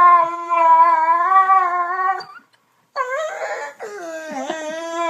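A dog howling: two long howls, the first breaking off about two seconds in, the second starting about a second later with a quick dip in pitch.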